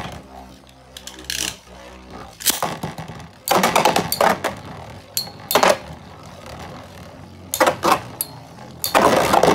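Metal Beyblade spinning tops whirring on a plastic stadium floor, a steady hum in the first two seconds, then a second top is in and the two collide with sharp clacks several times, the last clash near the end.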